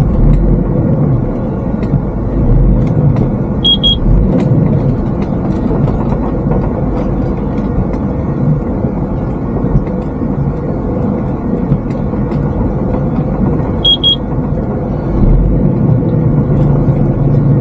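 Articulated truck's diesel engine running steadily, with knocks and rattles as it drives over rough ground. Two short high beeps sound, about four seconds in and again near fourteen seconds.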